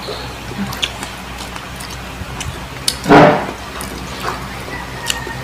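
Close-up wet eating sounds: chewing and lip smacks on saucy braised pork, with scattered small clicks and one louder wet smack about three seconds in.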